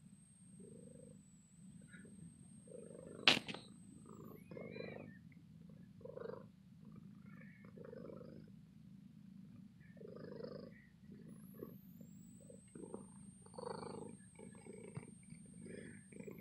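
Domestic cat purring close up while it is petted: a low, steady rumble that swells in waves every second or two. A single sharp click about three seconds in.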